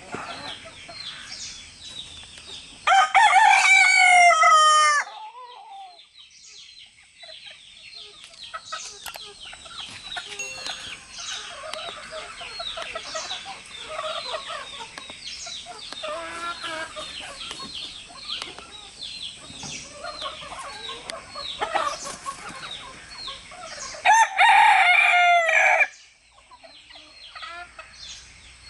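Roosters crowing: two long, loud cock-a-doodle-doos, one about three seconds in and another about twenty seconds later. Between them hens cluck, with many short, quieter calls.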